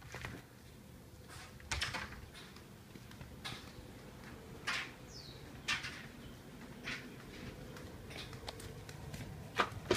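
Footsteps on a concrete floor, short knocks about once a second, with a couple of louder clicks near the end.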